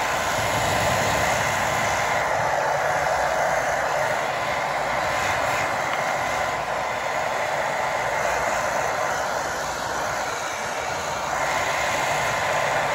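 Hot Shot Tools hair dryer blowing on its low-speed, low-heat setting: a steady rush of air, briefly a little quieter about ten seconds in.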